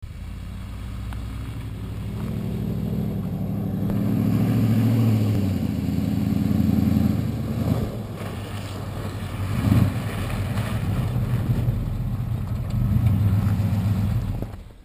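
Square-body pickup truck's engine running as it drives up, rising and falling with the throttle and getting louder as it approaches; the sound stops abruptly just before the end.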